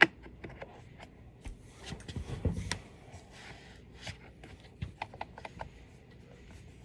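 Handling noises: a sharp click, then scattered light clicks and taps and a brief rubbing scrape about two seconds in.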